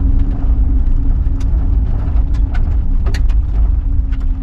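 A van driving on a forest road, heard from inside the cab: a steady low rumble of engine and road noise, with scattered small knocks and rattles from the bumpy road surface.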